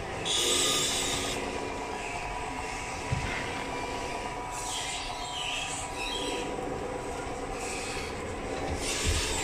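Radio-controlled Tamiya-style scale Scania trucks driving: a steady mechanical whine and hum from their motors and drivetrains, with two brief hissing rushes, the first just after the start and the second about halfway through.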